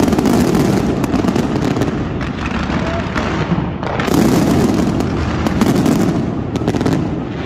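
Aerial fireworks bursting in quick succession: a dense run of sharp cracks and bangs over a continuous rumble, with a fresh surge of bursts about four seconds in.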